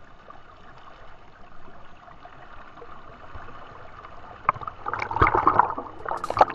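River water gurgling and rushing past close to the microphone, turning into louder splashing and sloshing from about four and a half seconds in as the camera is dipped to the surface.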